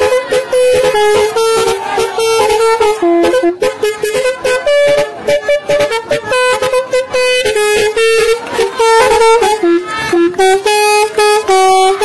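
Telolet musical horn on a bus, a set of electric air-horn trumpets playing a fast tune of short notes that step up and down in pitch.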